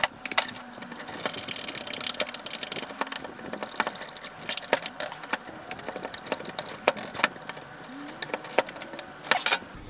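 Screws being driven by hand with a screwdriver into the plastic top housing of a Bosch POF 1200 AE router: rapid, irregular clicking and ticking, with a few louder clicks.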